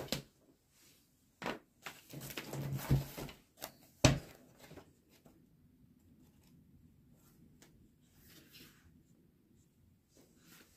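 A few light clicks and a stretch of rustling, then one sharp knock about four seconds in, followed by faint low background noise.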